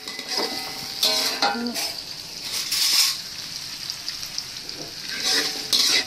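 Food sizzling in hot oil in a pan while it is stirred, the spatula scraping and clinking against the pan several times.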